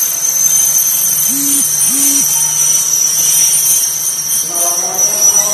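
Passenger train coaches rolling slowly into a station platform with a steady high-pitched metallic squeal over a low hum, as the arriving train slows. Two short low hoots sound about a second apart early on, and a voice starts near the end.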